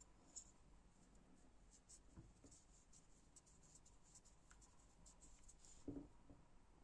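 Faint scratching and small ticks of objects being handled, with a soft knock about six seconds in.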